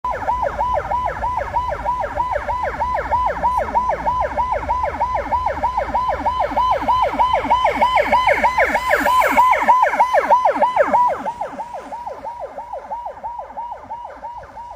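Emergency vehicle siren sounding a fast, repeating falling wail, about three or four sweeps a second, over low traffic rumble. It is loud at first, then drops off sharply about eleven seconds in and carries on fainter as the vehicle moves away.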